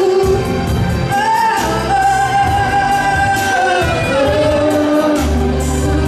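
Song with a vocal line holding long sustained notes over bass and drums.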